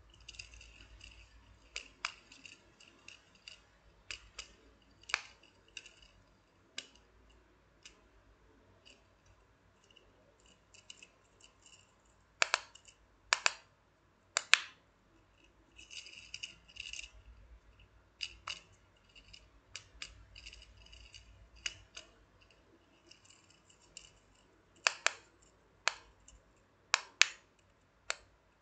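Octopus Simple Dimple pop hex fidget spinner being handled: irregular sharp clicks and pops as its dimples are pressed and the toy is turned over. The louder clicks come in a cluster about halfway through and again near the end, with short runs of light, quick ticking in between.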